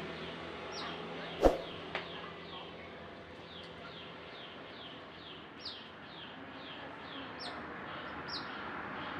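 Kolibri ninja sunbird singing a fast run of short, falling chirps, a couple a second. A sharp knock about one and a half seconds in is the loudest sound, with a lighter one just after.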